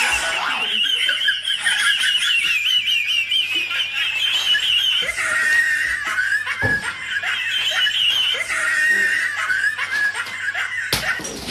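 High-pitched laughter that quavers rapidly up and down without a break, dropping lower about halfway through, like a comic laugh sound effect.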